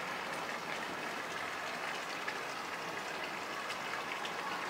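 Steady background hiss with faint distant voices.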